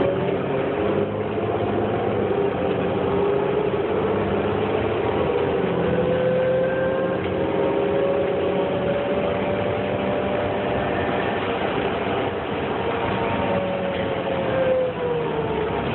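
2008 New Flyer C40LFR transit bus running, heard from inside the cabin: its Cummins Westport ISL-G natural-gas engine and Allison automatic transmission drone. A whine slowly rises in pitch, holds, then falls away near the end.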